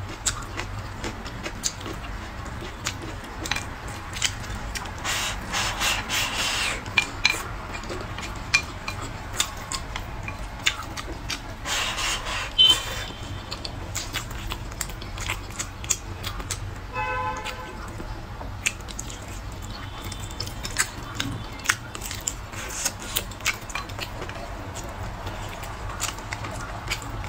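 Close-miked eating of braised pork ribs and green peppers: chewing and mouth smacks with many short clicks, and a couple of longer wetter stretches of chewing or slurping. A steady low hum runs underneath.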